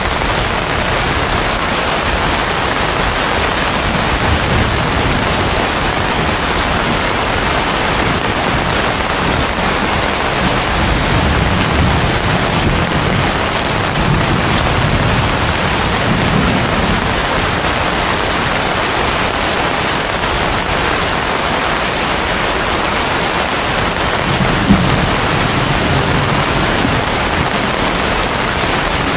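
Heavy rain falling steadily on broad banana and palm leaves, a dense even hiss, with a few low rumbles now and then.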